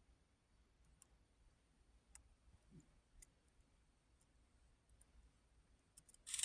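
Near silence with a few faint, scattered clicks and a faint steady high whine.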